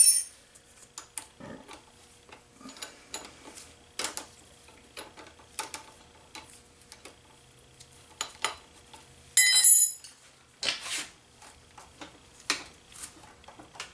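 Hand tools clicking and clinking against the front drum-brake adjuster of a 1970 Honda CT70 as it is set: scattered light clicks, with one ringing metal clink about nine and a half seconds in.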